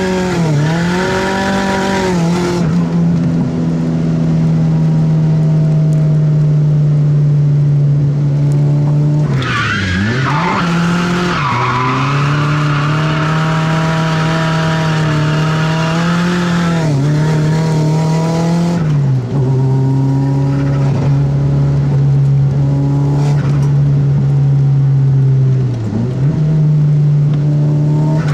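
Turbocharged SR20DET four-cylinder of a Nissan 180SX heard from inside the cabin, held at steady high revs through long drifts with tyre squeal. The revs dip and climb back briefly four times.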